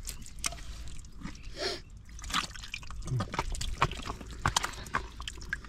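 Wet mud and water squelching, sloshing and dripping as hands dig and grope through a water-filled mud hole, with irregular small sucking splats.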